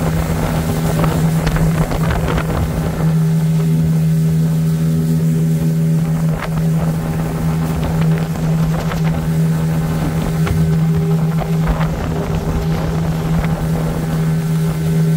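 Boat engine running steadily at one pitch as the fishing boat moves across choppy water, with wind on the microphone and water splashing at the hull.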